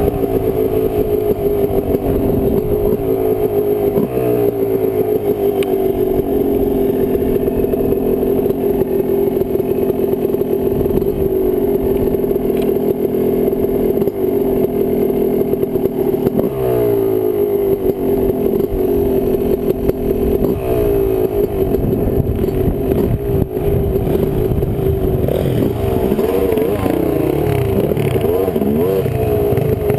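2005 Yamaha YZ250 two-stroke single-cylinder dirt bike engine running at easy trail pace, its pitch repeatedly dropping and climbing again as the throttle is rolled off and back on and gears are changed.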